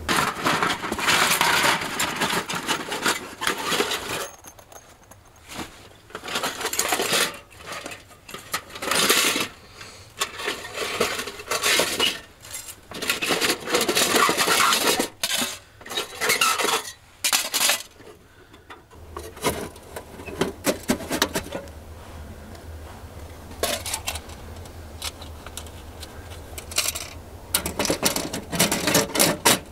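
Thin titanium panels of a folding camping wood stove clinking and clanking as it is handled and assembled, in an irregular run of metallic clatters and scrapes, with a quieter stretch about two-thirds through before the clanking picks up again.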